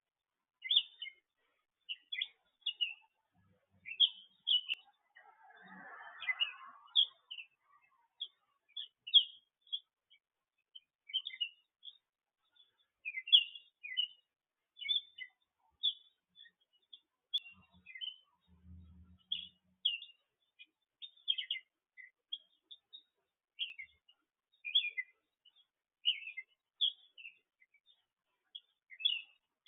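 Songbird chirping steadily, short high chirps roughly one a second. A soft hiss comes in briefly around six seconds in, and a short low hum near the nineteen-second mark.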